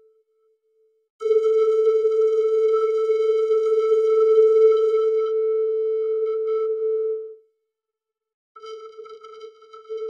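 Vocoded electronic tone held on one steady pitch, bright and buzzy, starting about a second in and lasting about six seconds before cutting off. After a gap of about a second the same tone returns near the end, quieter and wavering.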